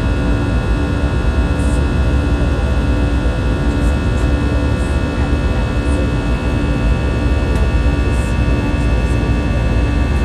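Steady cabin noise of an Airbus A319-112 in flight: the drone of its CFM56 turbofan engines and the rush of air past the fuselage. It is a deep rumble with several steady whining tones over it and a low hum that wavers in and out about once a second.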